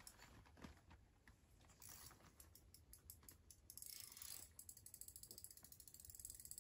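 Faint, rapid ticking of a fishing reel while a hooked fish is played; the scattered clicks become a fast, even run of ticks about four seconds in.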